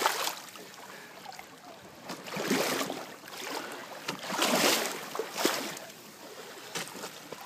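Water splashing and sloshing in several irregular swells, the loudest about two and a half and four and a half seconds in.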